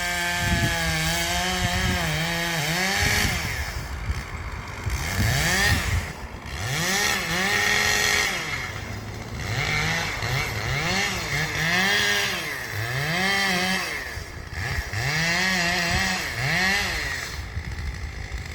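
Chainsaw cutting into the base of a large tree, its engine revving up and down over and over as the chain bites and eases off.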